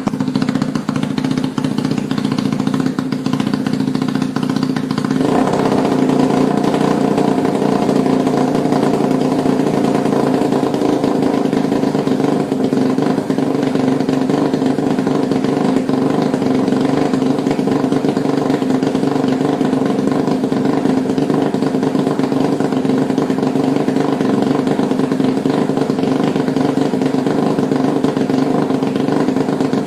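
Supercharged Yamaha Y15ZR's single-cylinder four-stroke engine running steadily through its exhaust. About five seconds in the note fills out and grows a little louder, then holds steady.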